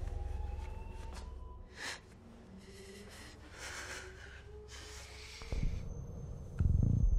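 A woman's shaky, heavy breaths and sniffs, several in a row. A low droning score fades out under them and comes back in loudly near the end.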